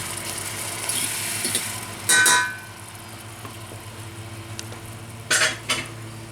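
Shrimp sizzling in a pan while a metal utensil stirs it. There is a loud ringing clink about two seconds in and two sharp knocks near the end, over a steady low hum.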